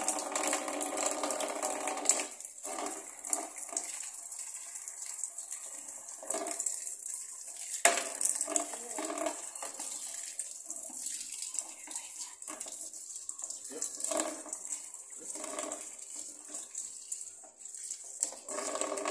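Tap water running in a steady stream into a plastic basin, splashing over a washing machine's plastic lint filter as it is rinsed by hand. Two sharp knocks come about two seconds in and near eight seconds in.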